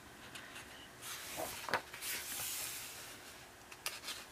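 A paper page of a colouring book being turned by hand: a soft rustle of paper sliding against paper for about two seconds, with a few crisp ticks.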